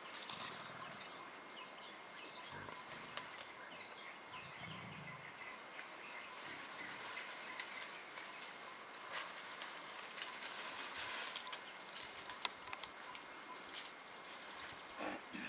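Leaves and stems rustling and crackling as mountain gorillas roll and play in the undergrowth, over a quiet forest background with a thin steady high tone. The crackling grows brisker about two-thirds of the way in.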